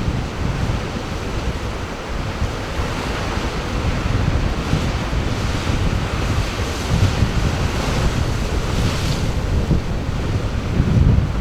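Sea surf washing in and out, its hiss swelling and fading a few times, with wind buffeting the microphone in an uneven low rumble.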